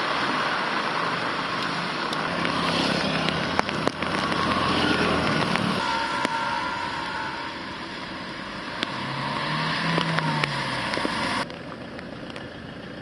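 Cars driving along a flooded street, their tyres hissing and swishing through standing water, with an engine hum rising and falling as a car passes about nine to ten seconds in. The sound drops to a quieter hiss near the end.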